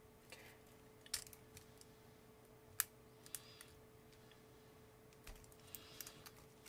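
Faint, scattered small clicks and scrapes of a thin precision-screwdriver tip working against a plastic LiPo balance-plug housing, pressing the retention tab to free a crimped pin; the sharpest click comes about three seconds in.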